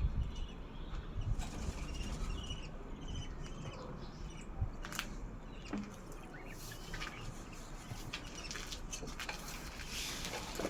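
Pet budgerigar chirping in short twittering notes over the first few seconds, followed by scattered sharp clicks.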